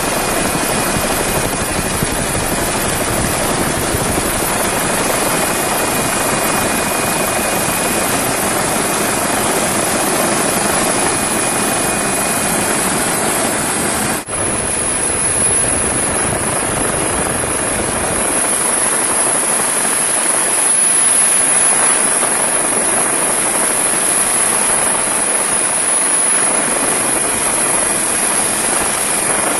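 Coast Guard rescue helicopter heard from aboard: a steady, dense rotor and turbine noise with a thin high whine over it, broken by a brief dropout about halfway through.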